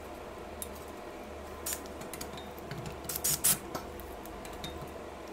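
Scattered sharp metallic clicks and clinks of bolts and brackets being fitted onto a steel-tube Pilates Cadillac frame, with a quick cluster of louder clicks about three seconds in.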